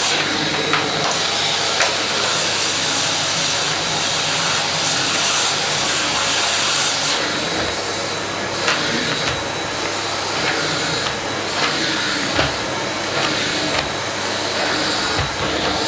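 Vacuum cleaner running steadily, a rushing suction noise with a high whine, broken by a few short knocks and clicks.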